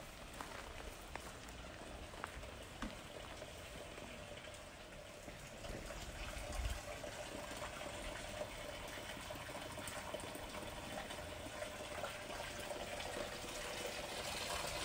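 Hot spring water splashing steadily from a dragon-shaped spout into a stone basin, growing a little louder near the end.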